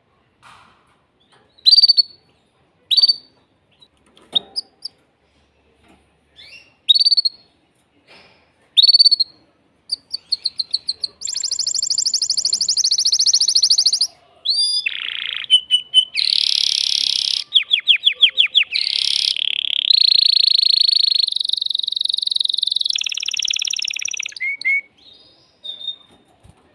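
Male domestic canary giving single sharp chirps every second or two, then about ten seconds in breaking into a long, continuous song of rapid trills and rolls lasting about fifteen seconds: the breeding song of an excited male.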